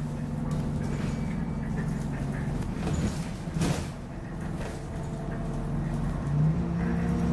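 Optare Solo single-deck bus running under way, heard from inside: a steady low engine drone, with a sharp knock about three and a half seconds in.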